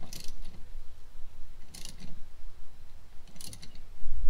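Handling noises from hands working a windshield washer hose onto a wiper arm: three short scratchy rustles about a second and a half apart, over a low rumble.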